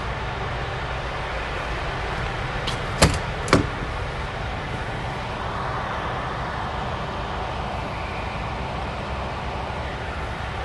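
Two sharp clicks about half a second apart, a little after three seconds in, as a MAN truck's cab door is opened at its latch, over a steady low rumble and hiss.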